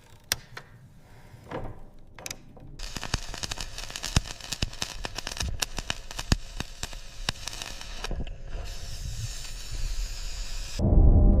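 Dense, irregular crackling and clicking over a hiss: a few scattered clicks at first, thickening about three seconds in and cutting off sharply near the end, where ambient music with held tones comes in.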